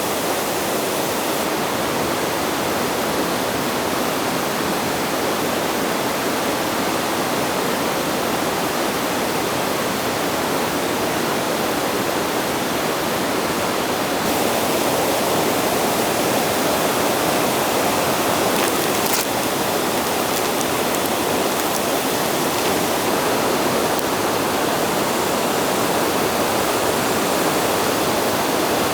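Steady, even rushing noise with no distinct events, a little louder from about halfway.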